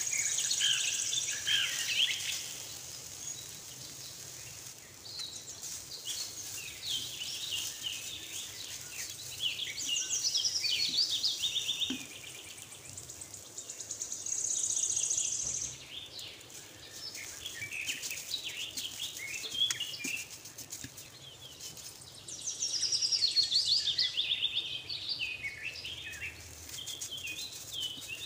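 Songbirds chirping and singing, with quick falling trills of notes every several seconds.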